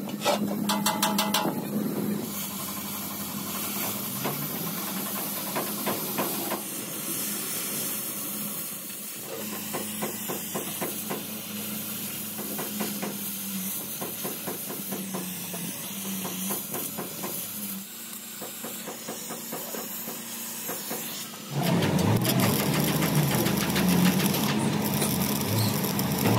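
Steel plate clattering into place, then an oxy-fuel gas torch hissing steadily with a fine crackle as it works the edge of a steel plate. About 21 seconds in, it gives way to the louder, denser crackle of stick (arc) welding on the plate.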